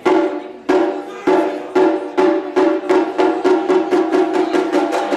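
Taiko drum strikes, each ringing with a clear pitch. They start about two every second and quicken steadily into a fast roll.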